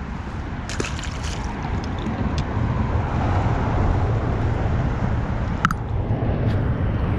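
Lake water lapping and sloshing against a concrete shoreline under a steady low rumble of wind on the microphone, with a few small handling clicks about a second in and a sharp click near the end.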